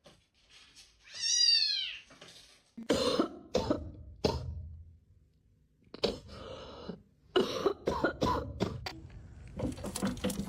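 A cat meows once, about a second in, in one loud call that rises and falls. It is followed by a string of short, harsh cough-like bursts.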